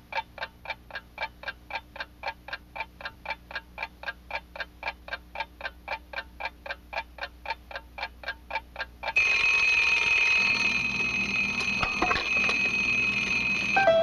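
Fast, even ticking, about four ticks a second. About nine seconds in it switches abruptly to a steady, louder alarm ringing.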